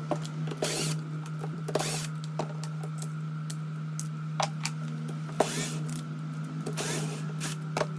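Hand tools working on a washing machine's motor parts: scattered clicks and knocks with four short scraping sounds, over a steady low hum.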